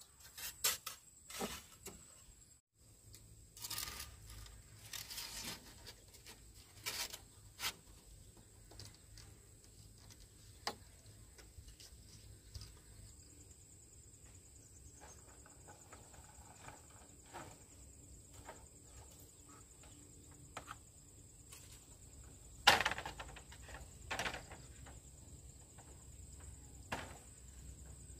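Scattered knocks, clacks and rustles of bamboo poles being handled and laid on a bamboo frame, the loudest a single sharp knock late on. A steady high insect drone runs underneath.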